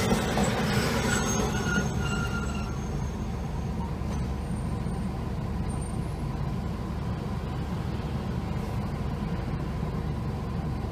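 Hankai Tramway tram slowing into a street stop, with faint high squeals as it brakes over the first few seconds. It then stands at the stop with a steady low rumble.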